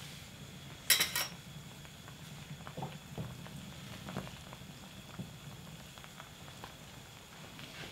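Pot of rice-cake soup boiling, a steady low rumble with small scattered pops. About a second in comes a brief rattle of sharp clicks, and a few light knocks follow as a utensil stirs the soup.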